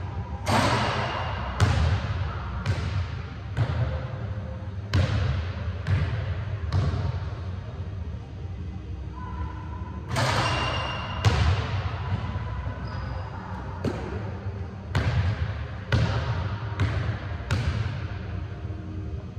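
A basketball thudding on a hardwood gym floor about once a second, each bounce echoing around the big hall. There are two runs of bounces, each opening with a louder, longer-ringing hit as a shot comes down, with a quieter pause of a few seconds between them.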